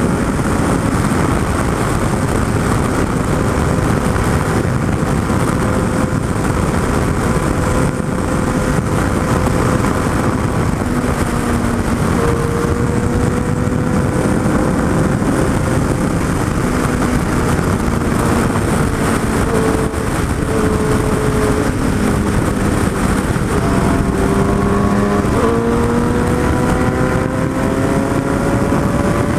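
Heavy wind rush on the microphone at highway speed on a Suzuki Hayabusa, with the bike's inline-four engine running as a steady tone underneath that drifts in pitch. About 25 seconds in, the engine pitch jumps up and then climbs as the bike accelerates.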